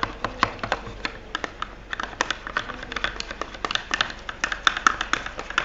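A stirrer clicking and tapping against a container while stirring a mixture of clear glue, hair gel and food colouring for slime, in quick irregular clicks.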